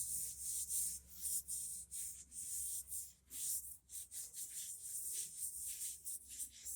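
Oiled steel anvil face being rubbed by hand with fine sandpaper: quick, irregular scrubbing strokes, a dry hiss with each stroke. The motor oil is being worked into the steel as a rust-preventing sealer.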